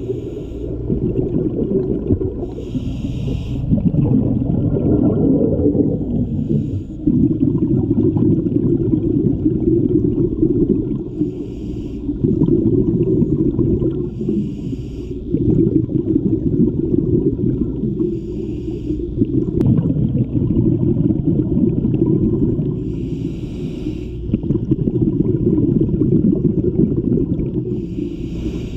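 Scuba diver breathing through a regulator underwater: a short hiss of inhalation every three to five seconds, each followed by a long low gush of exhaled bubbles.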